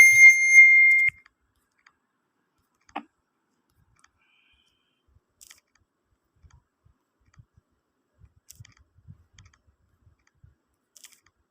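A loud, steady, high electronic beep from the phone, cutting off about a second in, then a faint click about three seconds in and a few fainter ticks.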